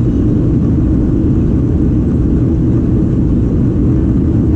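Steady, loud rumble of a Boeing 737-800's CFM56 turbofan engines and airflow, heard from inside the passenger cabin during the climb after takeoff.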